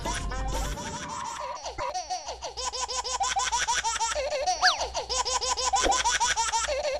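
High-pitched laughter, rapid repeated ha-ha-ha peals, over dance music with a steady beat, with one quick whistle-like glide up and down about two-thirds of the way in.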